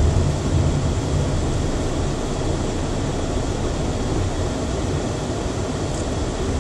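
Steady engine and road noise heard inside a moving car, a low rumble with no sharp events.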